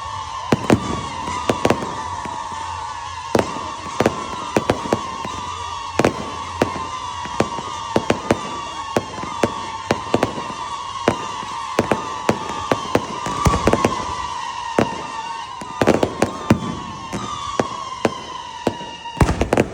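Fireworks display: a rapid string of sharp bangs, some in quick clusters, over a high whistle that slides down in pitch again and again.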